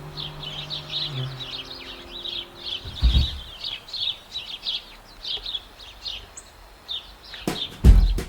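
Small birds chirping and twittering in a rapid, continuous stream of high notes. Music fades out in the first couple of seconds. There is a thump about three seconds in and a few loud thumps near the end.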